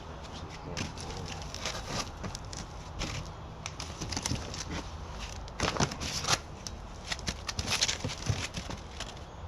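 Packaging being handled as a dehumidifier is unpacked from its box: irregular rustling, crinkling and scraping with light knocks, busiest a little past the middle.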